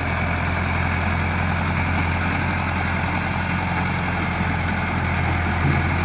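A 1960s backhoe-loader's engine running steadily as the machine drives across gravel with its bucket down, spreading rock.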